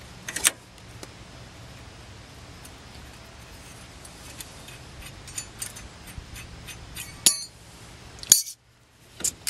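Socket ratchet and loose steel brake caliper hardware clicking and clinking as the caliper bolts and anti-rattle clips come off, with a few sharper metallic clinks that ring briefly, the loudest about seven and eight seconds in.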